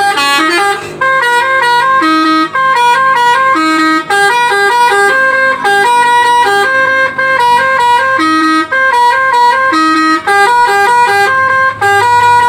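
Bus telolet air horn (Alzifa Airhorn V2.0) playing a melody: a quick run of clear horn notes stepping up and down, often two or three together, with short breaks between phrases.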